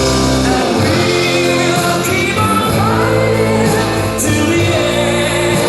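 Pop music with singing played over the hall's sound system.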